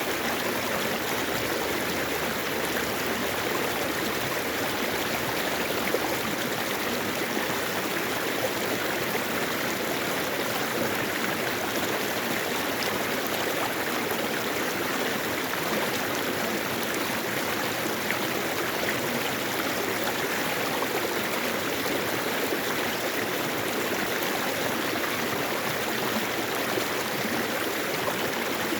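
Mountain-valley stream flowing over rocks: a steady, unbroken rush and babble of running water.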